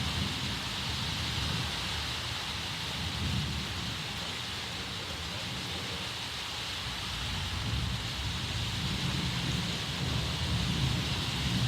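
Thunder rolling as a long, continuous low rumble from an approaching thunderstorm, swelling slightly near the end, over a steady background hiss.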